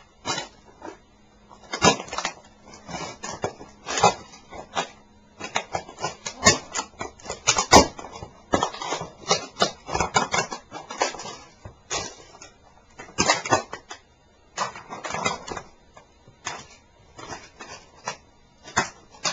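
A model Leopard tank being crushed under sneakers: irregular cracks, snaps and crunches of breaking pieces as the shoes tread and grind on it.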